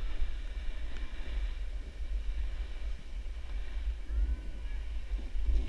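Wind buffeting an action camera's microphone: a steady low rumble with an even hiss above it.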